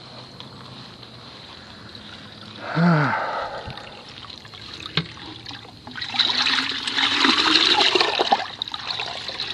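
Red plastic pitcher dipped into a bucket of water, splashing and gurgling as it fills, starting about six seconds in and lasting a couple of seconds. Earlier, about three seconds in, comes a brief loud sound that falls in pitch.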